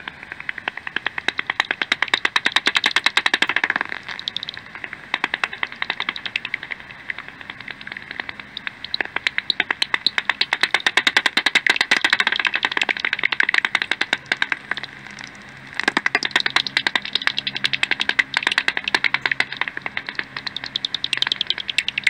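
Bat echolocation calls made audible by a bat detector, heard as fast trains of dry clicks and pops. They come in three long bouts, with short lulls about four seconds in and again near fifteen seconds.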